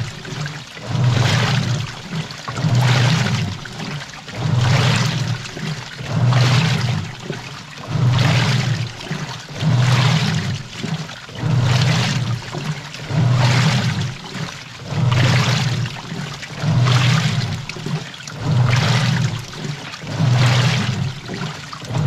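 Washing machine in its wash cycle, heard from inside the drum: the motor hums as the drum turns in regular strokes a little under two seconds apart, with water sloshing and splashing on each stroke and a brief lull between.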